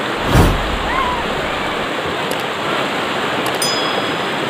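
River rapids rushing over boulders: a steady, loud rush of water, with a brief thump about half a second in and a short click near the end.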